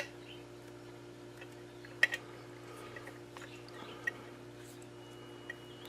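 Scattered small clicks and light handling noises of thin pixel wires and heat shrink tubing being worked by hand, over a steady low electrical hum: a sharp click at the start, a pair about two seconds in, then single faint ticks later.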